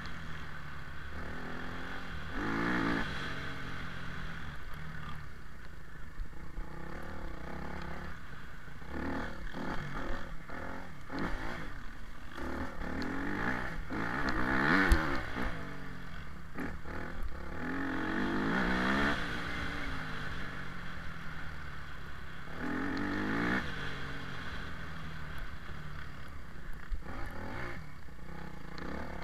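Off-road motorbike engine revving up and dropping back in surges every few seconds while riding over rough ground, with clattering and scraping from the bumpy terrain.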